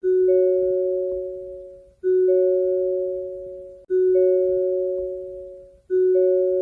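Hyundai car door-open warning chime: a soft two-note ding, low then higher, each ringing out and fading. It repeats about every two seconds, four times, and signals that a door is open.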